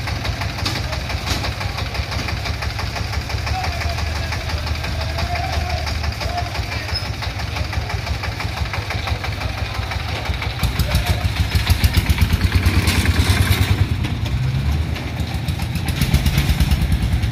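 Single-cylinder horizontal diesel engine of a three-wheeled tractor dump truck idling with a steady, even beat. About ten seconds in it speeds up and runs louder as the truck pulls away, then surges again near the end.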